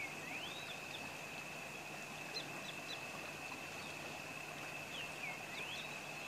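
Rainforest ambience: a steady high-pitched insect drone, with birds calling in swooping whistles at the start and again about five seconds in, a few short chirps in between, and a faint steady low hum underneath.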